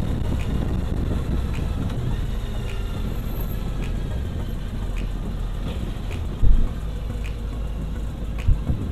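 Triumph Bonneville T100 sidecar outfit on the move, its parallel-twin engine running steadily at road speed. A short low thump comes about two-thirds of the way through and another near the end.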